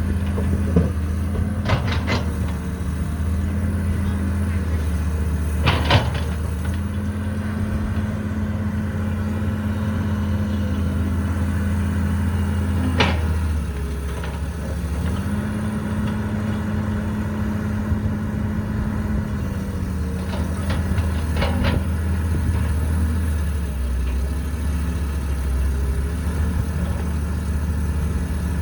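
Caterpillar 312B hydraulic excavator's diesel engine running steadily, its pitch rising and falling a little a few times, with about four sharp knocks spaced through it.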